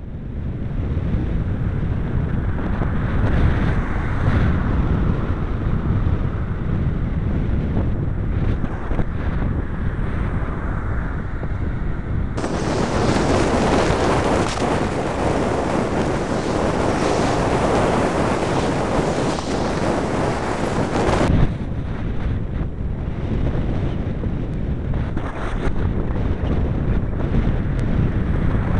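Wind buffeting the microphone of a small MD80-clone camera while cycling on a road, mixed with road noise. About 12 seconds in, it switches suddenly to a louder, hissier rush that cuts off just as suddenly about 9 seconds later.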